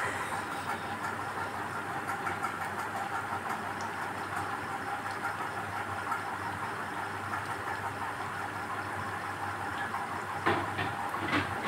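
Battered mango pakoras deep-frying in a pan of hot oil: a steady sizzle and bubbling. There are a couple of short knocks near the end.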